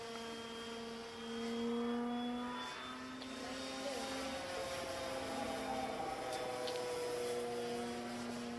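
Sebart Katana radio-controlled model aerobatic airplane flying overhead, its motor and propeller giving a steady drone whose pitch shifts a little as it manoeuvres.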